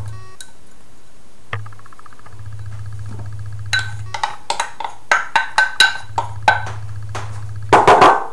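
Wooden spoon stirring mixed berries in a small saucepan: a run of knocks and clinks against the pan in the second half, then a louder rattling scrape near the end, over a low hum that comes and goes.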